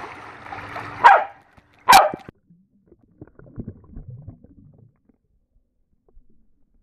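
A dog splashes into a swimming pool, then a dog barks twice, sharply, about one and two seconds in; after that only faint water sounds.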